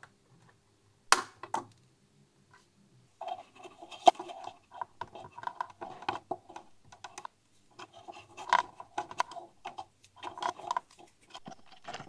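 Hand-tool and wire handling on a metal amplifier chassis: pliers and a wooden stick working a wire around a switch. A sharp click about a second in, another about four seconds in, then a busy run of light ticks, taps and rustles.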